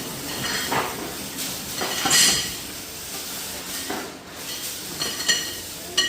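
Irregular metallic clanks and clinks of steel parts being handled and knocked together, the loudest about two seconds in.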